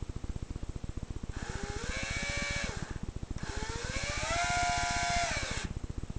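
Cordless drill driving screws through a gate clasp into a wooden door frame, in two runs with a short pause between. Each time the motor whine rises as it spins up and falls away as it stops, and the second run is longer and louder.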